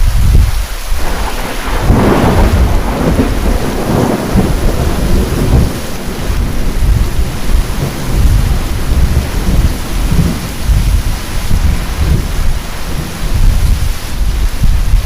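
Heavy rain with a loud, long roll of thunder: a sharper crackling peal about two seconds in, then deep rumbling that goes on under the steady rain.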